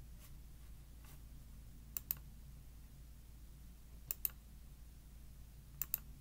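Faint sharp clicks coming in quick pairs, one pair about every two seconds, over a steady low hum.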